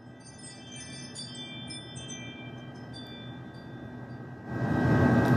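Ring doorbell alert chime: a quick run of bright, high chime notes, like a wind chime, lasting about three seconds. A louder rushing noise comes in near the end.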